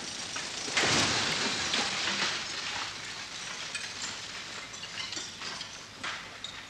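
Brick building being demolished: a wall collapses with a loud crash about a second in, followed by rubble crackling and clattering as it settles.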